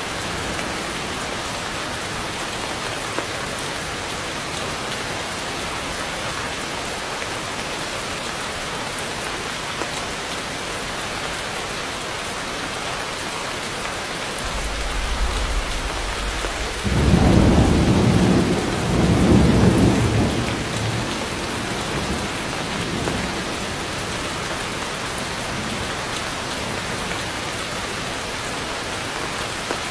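Heavy rain falling steadily. A low roll of thunder builds about halfway through, is loudest a few seconds later, then dies away under the rain.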